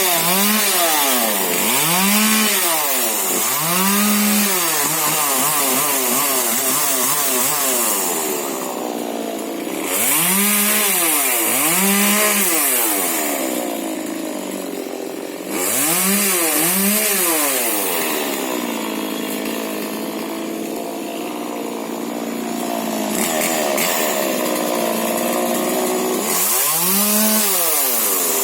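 Husqvarna 125 40cc two-stroke mini chainsaw revved up and down over and over as it prunes shrub branches, its engine pitch rising and falling in repeated swells with a couple of brief easings off.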